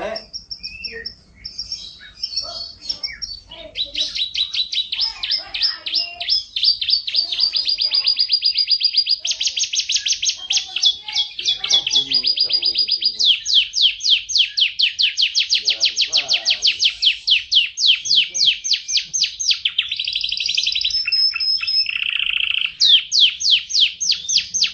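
Male canary singing a long, continuous song of fast trills and rolls, with a few held whistled notes and a lower buzzy roll near the end.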